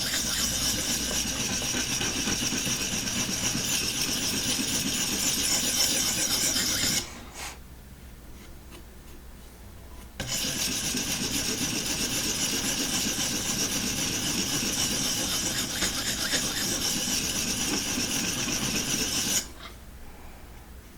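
250-grit sharpening stone of a guided knife-sharpening system rasping back and forth along a steel knife edge, raising a burr while setting the secondary bevel. Two long runs of strokes, with a pause of about three seconds after about seven seconds, and a stop near the end.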